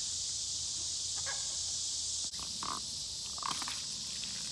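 A steady, high-pitched insect drone, with a few short calls from the Cornish cross meat chickens and a single click about two seconds in.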